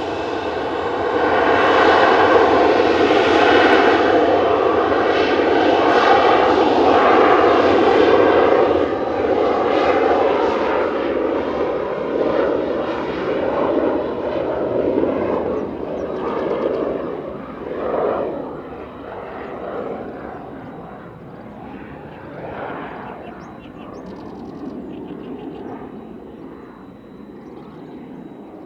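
Jet aircraft engine noise, loudest in the first few seconds, then slowly fading as the aircraft moves away.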